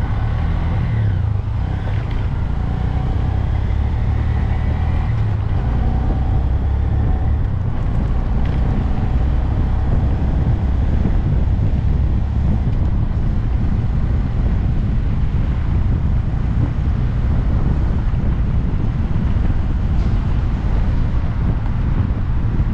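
Riding on a 2022 Honda Grom, its 125 cc single-cylinder engine running under heavy wind noise on the microphone. The engine's pitch shifts over the first several seconds, then the sound settles into steady wind and engine noise.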